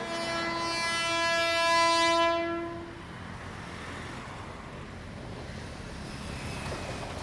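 Sri Lankan train's horn sounding one long steady note for about three seconds, then the rumble of the train running on the track.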